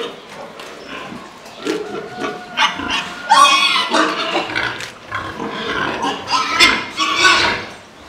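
A large white pig, fed from a hand-held cup, calls loudly in two long bouts, about three and six seconds in.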